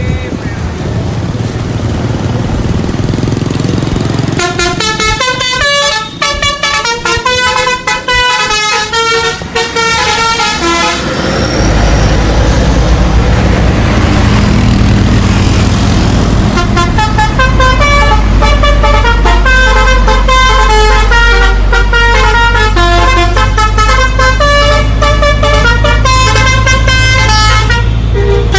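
A bus's musical horn playing a tune in quick stepped notes, in two long stretches: from about four seconds in to about eleven, and again from about sixteen seconds on. Under it the bus's engine runs with a steady hum, stronger in the second half.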